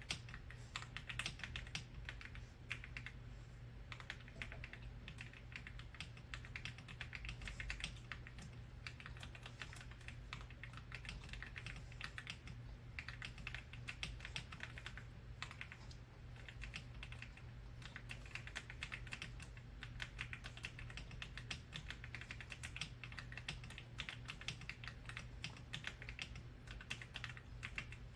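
Continuous fast typing on an AULA F99 mechanical keyboard with pre-lubed linear switches, a dense run of keystroke clacks over a steady low hum.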